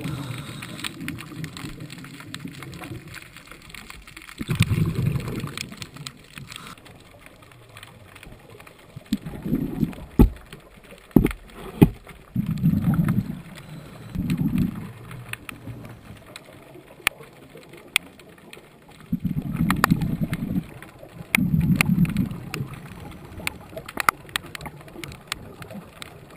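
Underwater recording of a scuba diver's exhaled bubbles, bubbling in low bursts of about a second, several times and partly in pairs, with scattered sharp clicks.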